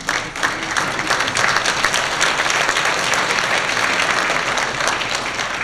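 Audience applauding: dense clapping from a large crowd that swells over the first second and begins to fade near the end.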